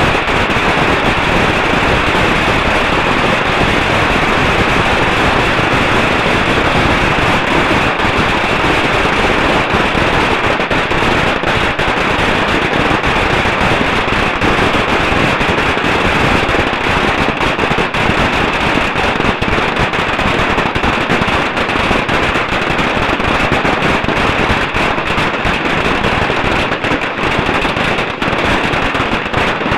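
A dense, unbroken barrage of small rockets and firecrackers going off at close range, the bangs packed so tightly that they merge into one continuous crackle.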